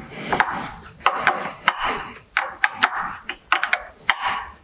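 A 3/4 in spanner undoing a track rod end nut on a Ferguson FE35 tractor's front axle: repeated metal-on-metal scraping strokes with sharp clicks as the tool is worked and reset on the nut.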